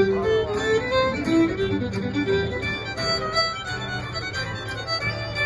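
Irish fiddle playing a brisk hornpipe melody, with a guitar accompanying underneath.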